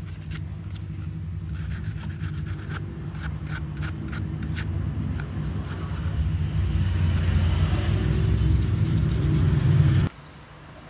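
Toothbrush bristles scrubbing back and forth over a Samsung Galaxy A10's aluminium midframe: a fast run of scratchy rubbing strokes with a low rumble of handling underneath. It grows louder and stops abruptly near the end.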